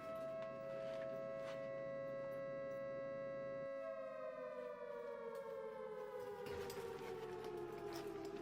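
Air-base alert siren of the air-raid type, sounding a steady two-note tone that begins to wind down slowly in pitch about four seconds in. It is the scramble alarm calling pilots to an immediate takeoff.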